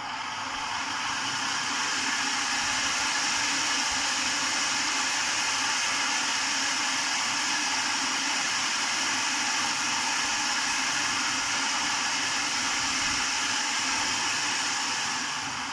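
Food processor motor running steadily, its blade whisking a thin, runny mix of eggs, vinegar and lemon juice in the plastic bowl before any oil goes in. The sound tails off near the end as the machine is switched off.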